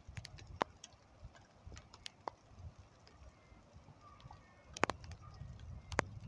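Irregular sharp clicks and taps close to the microphone, a few a second and strongest near the end, over a faint low, gusting rumble like wind on the microphone.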